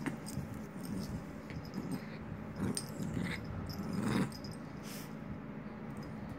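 Small Maltese puppy growling in tug-of-war play with a rope toy, in short spells, loudest about four seconds in, among small clicks and rustles.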